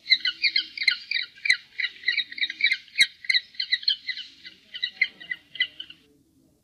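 Penguins calling: a rapid run of short, high-pitched squawks, several a second, that thins out and stops about six seconds in.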